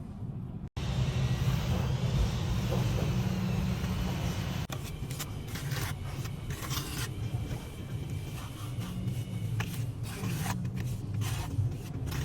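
A hand tool scraping and rubbing over mortar in a run of short, repeated strokes, mostly in the second half, over a steady low rumble.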